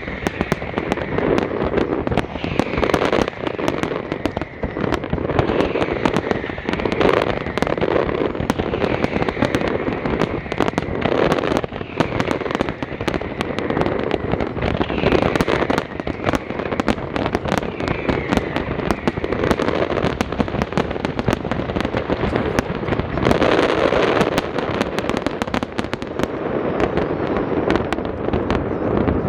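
Large fireworks display going off continuously: a dense crackle of sharp cracks and pops in rapid succession over a steady rumble of bursts.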